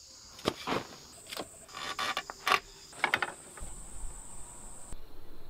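Sharp knocks, clicks and rustles of hands handling a tarp and wooden poles, over a steady high-pitched drone of insects.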